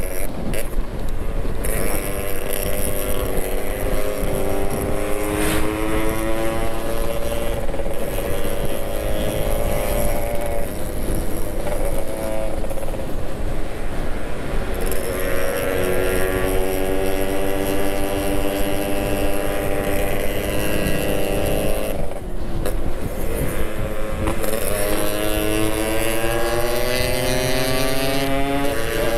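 Yamaha RX-King two-stroke single-cylinder engine under way, its pitch climbing as the bike accelerates and dropping back at each gear change, several times over.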